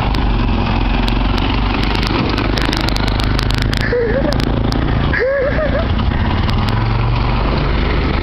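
Small engines of three-wheeled mototaxis (auto-rickshaws) running steadily close by, with a couple of brief voice sounds around four and five seconds in.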